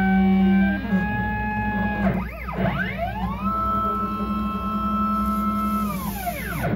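CNC machine's stepper motors whining as the axes move the pen: several pitches together that hold steady during straight runs and sweep up and down as the axes speed up and slow down, about two seconds in and again near the end.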